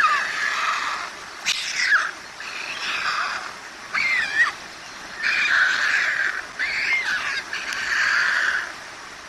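White stork nestlings giving hoarse begging calls at feeding time, about one a second. Some are short sharply falling squeals and others are longer rasping stretches.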